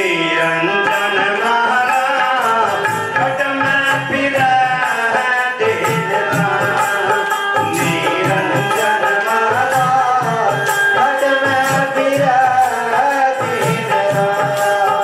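Devotional bhajan music: singing to a plucked ektara, with wooden kartal clappers clacking in a steady rhythm.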